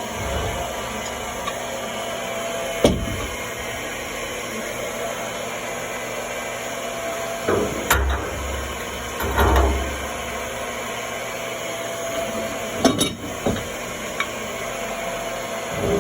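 A few scattered knocks and clunks of hand tools and metal parts being handled while an oil tank's fittings are worked on, over a steady background hum.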